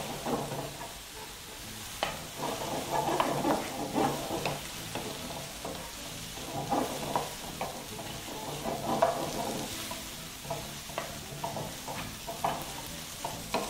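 Spinach, mushrooms and garlic sizzling in oil in a non-stick frying pan while a wooden spatula stirs and scrapes them around, in many short, irregular strokes.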